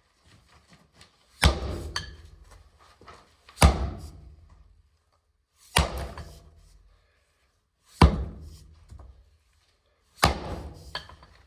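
Sledgehammer striking old cast iron drain pipe to break it up, five heavy blows about two seconds apart, each followed by a short ringing clatter of metal and fragments.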